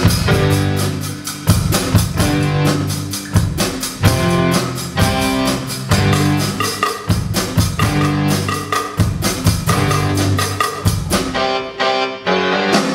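Live band playing an instrumental intro: a Yamaha drum kit keeping a steady beat under electric guitar and low bass notes. The cymbals drop out about a second before the end.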